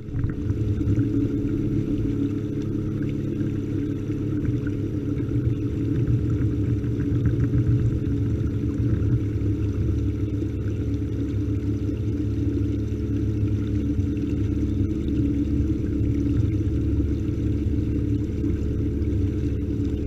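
Minn Kota electric trolling motor driving a kayak, a steady unchanging hum over a low rumble of water and wind.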